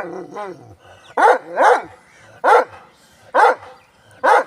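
Jhoki village dog barking: a weaker, drawn-out whining bark at the start, then five sharp barks roughly a second apart, the first two close together.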